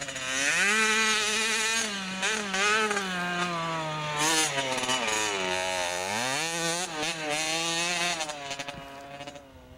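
Small dirt bike's engine revving up and down as it is ridden around the motocross track, its pitch rising and falling with the throttle and dropping low about six seconds in before climbing again. The sound falls away near the end.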